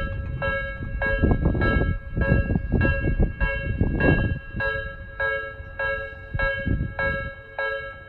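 Japanese level-crossing alarm of the electronic Nikko type, set to a slow tempo, dinging about twice a second as the barriers come down for an approaching train. A loud low rumble rises under it from about a second in and fades by the middle.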